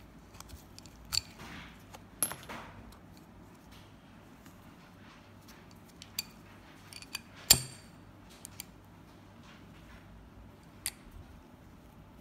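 Chrome-plated forged steel sockets clicking and clinking against a 1/2-inch drive flex-head socket handle as they are pushed onto and pulled off its drive square. Scattered sharp metal clicks, the loudest about seven and a half seconds in.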